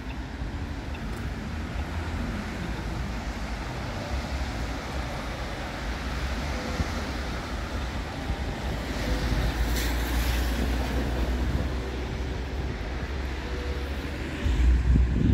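Outdoor street noise with wind buffeting the microphone and traffic on wet roads in the background; a stronger gust hits the microphone near the end.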